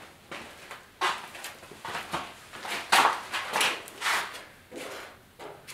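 Body filler being spread with a hand spreader over small dents in a steel truck hood: a run of short scraping strokes across the panel, about ten in a few seconds.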